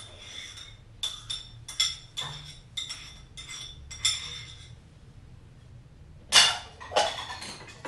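A metal spoon tapping and scraping against a ceramic bowl, about seven ringing clinks in the first four seconds as diced ham is knocked out of it. About six seconds in comes a louder clatter as the bowl is set down.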